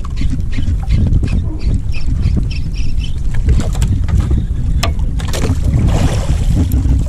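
Wind buffeting the microphone and water washing against an outrigger fishing boat, a steady low rumble, with scattered small clicks as a spinning reel is handled.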